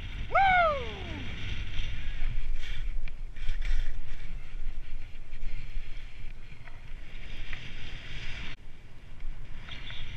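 Skis sliding and scraping down steep snow: a hiss of snow under the skis that swells and fades with the turns, over wind rumbling on the action-camera microphone. A brief whoop falling in pitch comes near the start, and the snow hiss cuts off suddenly after about eight and a half seconds.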